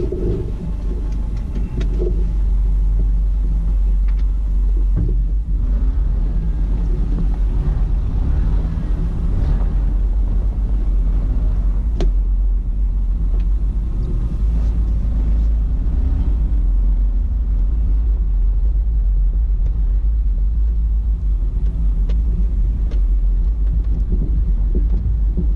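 Steady low rumble of a 2003 Subaru Forester driving, picked up by a camera mounted on the outside of the car, so wind and road noise dominate. A few sharp clicks stand out, one about midway through.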